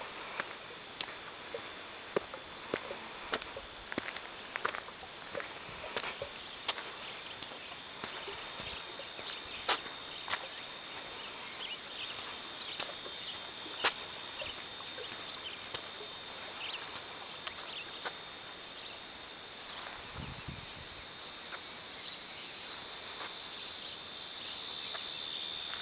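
Steady, high-pitched drone of insects, two close tones held without a break, with scattered sharp crunches of footsteps on a dirt path, mostly in the first half.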